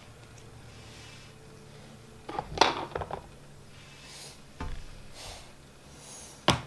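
Small plastic toys being handled: a short clatter of clicks and knocks about halfway in, then a couple of single sharp clicks near the end.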